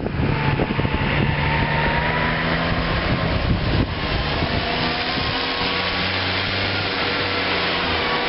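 Diesel engines of corn-silage harvest machinery, forage harvester and tractors, running steadily under load. Wind buffets the microphone at the very start.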